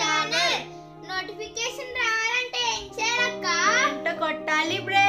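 Children's voices in a sing-song outro over background music with held chords.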